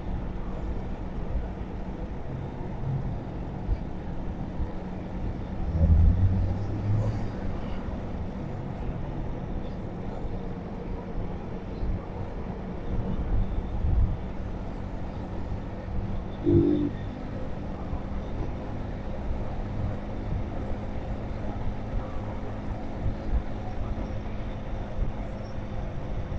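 Road traffic: a steady low rumble of passing vehicles, with a louder low thump about six seconds in and a brief pitched tone around sixteen seconds.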